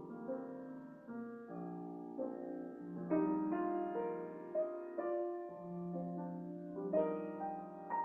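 Slow, quiet piano music: held chords, with new notes coming in one at a time every second or so.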